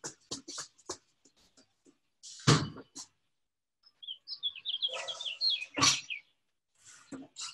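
Small birds chirping, with a quick run of short high sliding notes from about four seconds in. Two heavy thumps on a tiled floor, the louder one about two and a half seconds in and another near six seconds.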